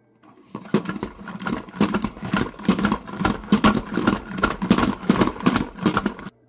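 Pump-style salad spinner being pushed down over and over, a rhythmic clatter of about three strokes a second as the basket of greens spins. It cuts off suddenly near the end.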